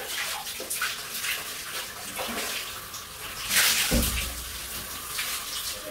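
Shower water spraying and splashing onto a person and the glass screen, with a louder gush of splashing and a dull thump about four seconds in.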